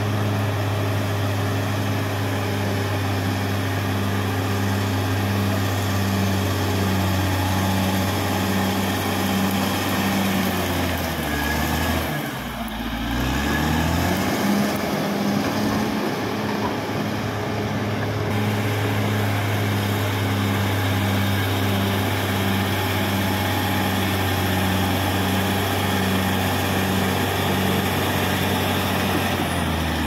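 Caterpillar D6R XL bulldozer's diesel engine running steadily with a regular pulsing in its note. About twelve seconds in, the engine speed drops sharply, then climbs back to its working speed.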